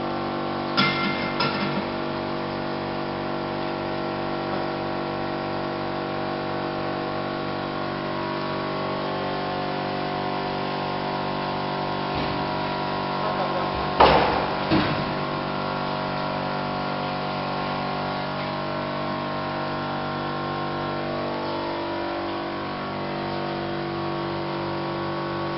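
Steady machine hum of polyurethane foaming equipment, several fixed tones held together, with a pair of short metallic knocks about a second in and a louder clatter about halfway through.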